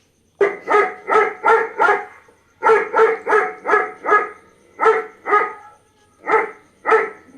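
Recording of a dog barking: quick runs of sharp barks, about three a second, broken by short pauses, starting about half a second in.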